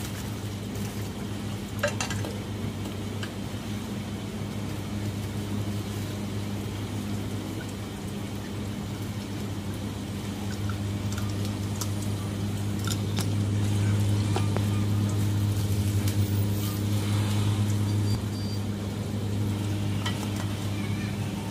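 Light clicks and scrapes of a truck's fuel filter and water separator being handled and screwed on by hand, over a steady low mechanical hum that swells a little past the middle.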